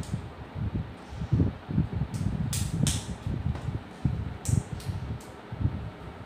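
A toddler clapping his hands, two quick runs of three claps, about two seconds in and about four and a half seconds in. Low, dull thumps come and go underneath.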